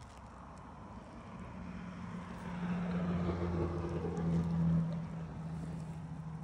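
A motor vehicle passing on the street: its engine noise swells over the first few seconds, peaks around the middle, then eases off.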